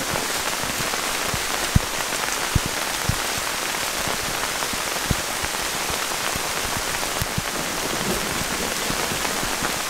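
Heavy rain pouring down steadily, with a few sharp taps of drops striking close by.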